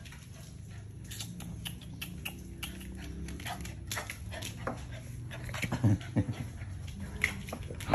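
American Bulldog puppy's claws clicking and scrabbling on a linoleum floor as it runs and slides. Two short, low sounds from the dog about six seconds in.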